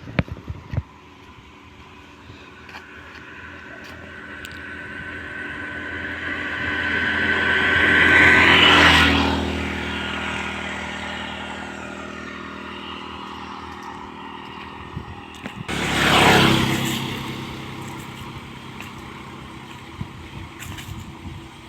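Two motor vehicles passing by. The first is heard approaching for several seconds, loudest about nine seconds in, with an engine whine that drops in pitch as it moves away; a second passes more quickly about sixteen seconds in.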